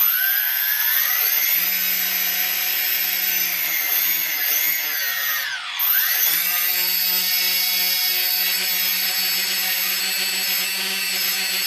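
The four brushless motors of a Micro Gear CX20 quadcopter, props off, spinning up as soon as it is armed after ESC calibration: a loud whine with several tones that climbs in pitch at first. About six seconds in the pitch swoops down and climbs back up, then the whine holds steady.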